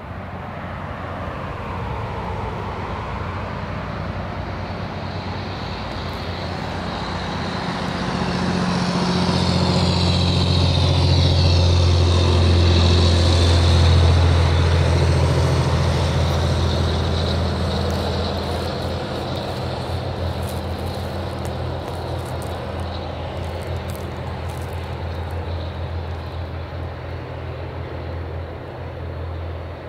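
A heavy vehicle passing by: a low engine drone that swells to its loudest about twelve to fourteen seconds in, then slowly fades.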